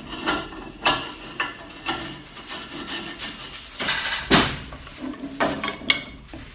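A steel pipe coupling being screwed by hand onto the threaded end of a galvanized pipe held in a vise: metal threads rubbing and rasping, with several sharp metallic knocks as the fitting and a pipe wrench are handled, the loudest a little past four seconds in.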